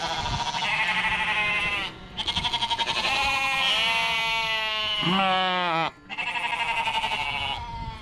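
A flock of Shetland sheep bleating, many wavering calls overlapping almost without a break, with two short pauses about two and six seconds in.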